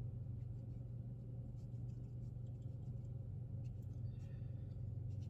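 Faint scratching and small taps of a watercolor brush working dark paint, mixing it and brushing it onto paper, over a steady low hum.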